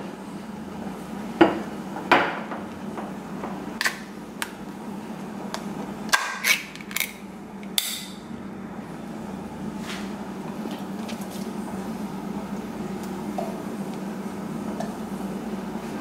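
Metal utensils clinking and knocking against an enamel soup pot and an open tin can of chipotle chiles while the soup is seasoned. The sharp clinks come a second or two apart, with a quick cluster about six to eight seconds in, over a steady low hum.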